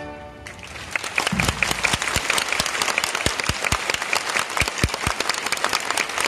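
A large audience applauding, starting about half a second in as the last held chord of a brass marching band dies away in the hall's echo.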